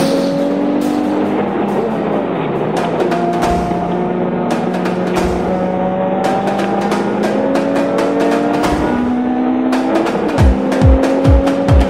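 Nissan 350Z's V6 racing engine heard from inside the cabin, revving up and dropping back at each gear change under hard acceleration. A music track with a steady drum beat plays over it, the beat strongest near the end.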